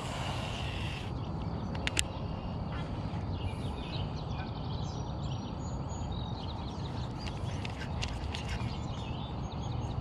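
Small birds chirping over a steady low rumble of wind on the microphone, with a couple of sharp clicks about two seconds in.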